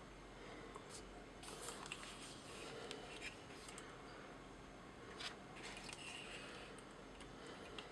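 Faint handling noise of a plastic transforming robot toy being turned in the hands: soft rustles and a few small plastic clicks, the clearest about five seconds in.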